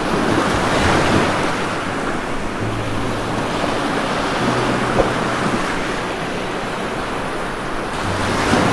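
Heavy rain pouring steadily onto tree leaves, with a single sharp tap about five seconds in.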